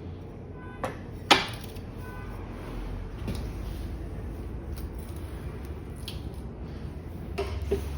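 Sheet steel being handled and worked: a sharp metallic clank with a brief ring about a second in, just after a lighter knock, then a few light taps and knocks, over a low steady hum.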